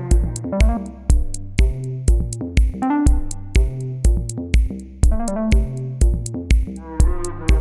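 Background music: an electronic track with a steady drum-machine beat, about two beats a second, under a synthesizer melody.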